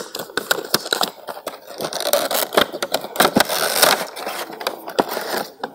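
Cardboard product box being opened by hand: paperboard flaps and sleeve scraping and rustling, with many small irregular clicks and taps.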